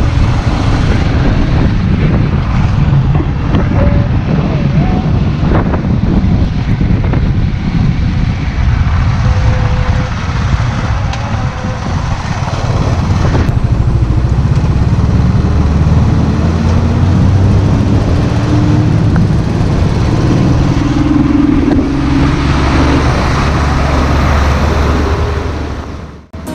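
Royal Enfield motorcycle engine running under way down a mountain road, with wind rushing over the camera microphone. The sound drops away abruptly just before the end.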